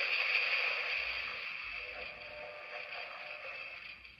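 Electronic sound effect from the Captain Marvel Titan Hero figure's Power FX launcher, set off by its button: a steady hissing rush through the toy's small speaker that slowly fades and cuts off near the end.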